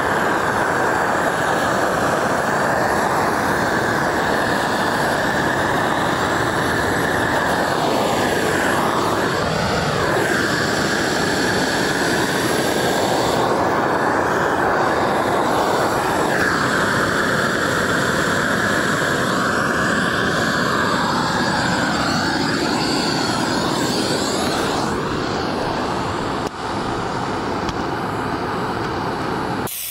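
Gas burner torch running with a steady rushing hiss while heating a bitumen waterproofing membrane onto the concrete foundation wall. A faint tone in it wavers now and then.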